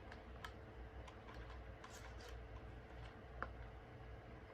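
A few faint, scattered small clicks and light handling noises over a low steady hum, the sharpest click about three and a half seconds in.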